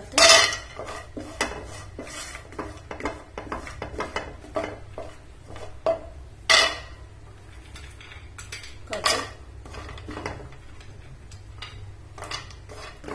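Almonds and then cashews dropped into a nonstick frying pan with a little ghee, clattering on the pan, and stirred about with a wooden spatula: a run of sharp clicks and clatters, loudest about a third of a second in and again at about six and a half and nine seconds.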